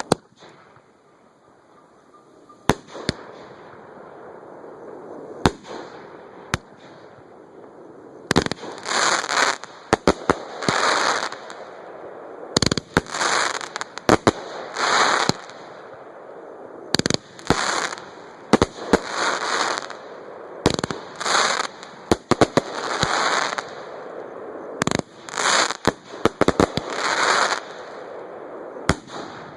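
Fireworks going off at close range: a few sharp single bangs, then from about eight seconds in, runs of loud crackling, hissing bursts, each under a second long, coming in quick clusters.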